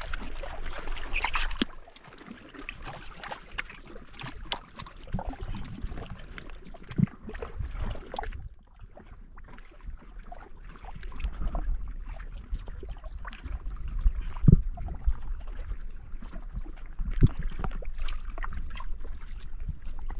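Water lapping and splashing around a small boat, with scattered knocks and thumps from handling, the loudest about midway and again a few seconds later. Wind rumbles on the microphone underneath.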